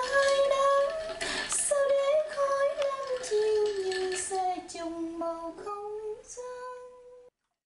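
Background music with a Vietnamese song, a singer holding long notes over the accompaniment, fading down and cutting off about seven seconds in.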